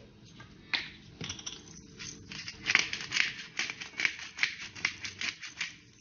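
Ground pepper and salt being shaken from a shaker jar over a bowl of breadcrumbs: a run of short, dry shaking rattles, coming a few a second in the middle of the stretch.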